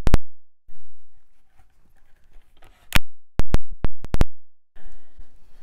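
Staple gun firing staples through jute twine into a pine board: a sharp shot at the start, then a quick run of about six shots around three to four seconds in.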